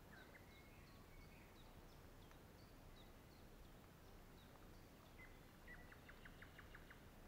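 Faint wild birdsong over quiet outdoor background noise: scattered high chirps, then a quick run of about eight rapid notes about six seconds in.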